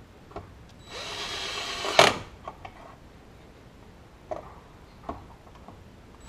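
Cordless drill spinning a screw in for about a second. It ends in a sharp, loud burst of clicking as the drill's light clutch setting slips with the screw snugged down. A few faint clicks of handling follow.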